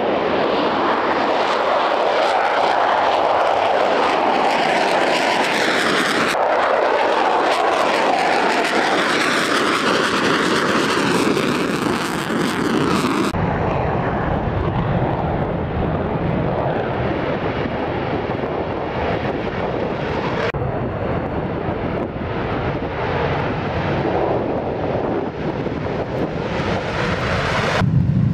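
F-15 Strike Eagle's twin jet engines running at high power during takeoff, a dense continuous jet noise. Its character changes abruptly about halfway through and again about two-thirds through, as the footage cuts from one jet's takeoff to another.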